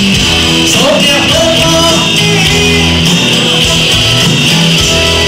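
Live band playing, with keyboards, electric guitar, bass and drums, and a voice singing over the music.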